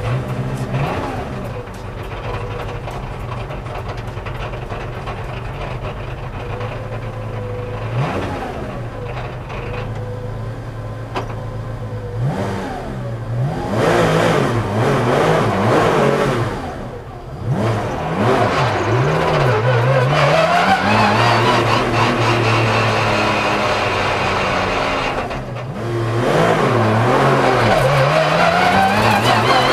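Porsche 997 GT3 Cup race car's 3.6-litre flat-six heard from inside the cockpit. It idles with short throttle blips and a few revs climbing and falling, then accelerates away with the revs rising, easing off briefly about 25 seconds in, and rising again.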